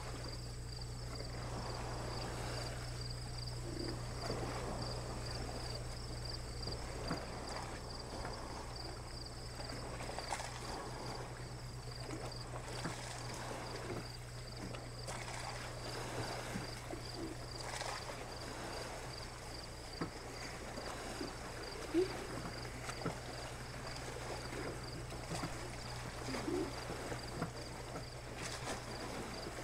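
Outdoor live-cam ambience: a steady low hum under a high, evenly pulsing insect trill, with faint wash and lapping noise and a single short knock about two-thirds of the way through.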